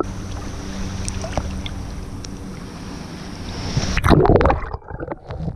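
Sea water sloshing and wind buffeting a waterproof camera's microphone at the waterline. A loud splash comes about four seconds in as the camera goes under, and the sound turns muffled and underwater after it.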